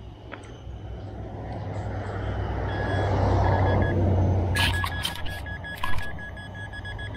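A handheld metal-detecting pinpointer probing a dug plug of soil sounds a steady beep, then, from about halfway in, rapid pulsing beeps for about two seconds, signalling metal in the plug. A few sharp knocks fall among the pulses. Under it a motor vehicle passes, its rumble swelling to the loudest point about a third of the way in and then fading.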